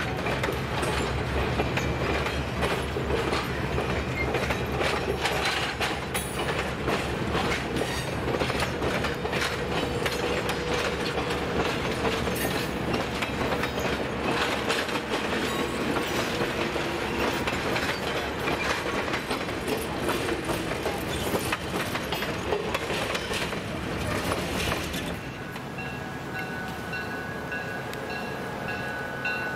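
Passenger train cars rolling past at close range: a steady, dense clicking and knocking of steel wheels over the rail joints. About 25 seconds in, the rolling fades and a steady ringing, chime-like tone takes over.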